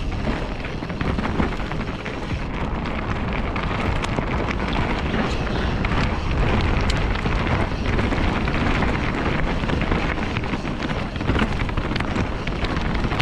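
Yeti SB6 mountain bike riding fast down a rough, stony dirt trail, heard from a helmet-mounted camera: a steady rush of wind over the microphone and tyre noise on loose gravel, with many small rattles and knocks as the bike goes over bumps.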